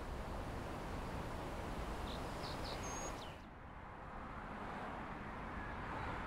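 Outdoor ambience: a steady noise bed with a few faint, short bird chirps about two to three seconds in. The high hiss drops away abruptly about halfway through.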